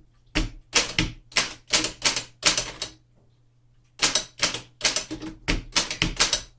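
1908 Remington Standard manual typewriter being typed on: a run of single key strikes, about three a second, with a pause of about a second midway before the typing resumes.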